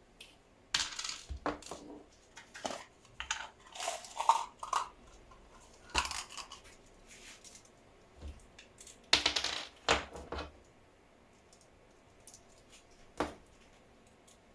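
Irregular clatter of small parts and tools being handled on a workbench: clinks, knocks and short scrapes, a couple ringing briefly like metal, with the loudest scrape about nine seconds in.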